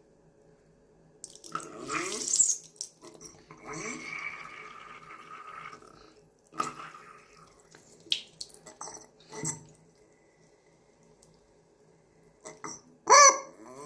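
A chicken drinking, with splashing water sounds and several odd pitched calls that slide in pitch. The loudest is a short call near the end.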